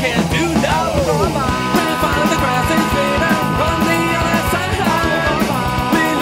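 Pop-punk rock song playing, with a steady drumbeat. Gliding pitched lines in the first second or so give way to held notes that ring steadily from about two seconds in.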